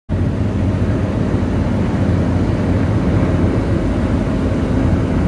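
Low, steady rumble of a moving road vehicle's engine and tyres, heard from inside the cabin.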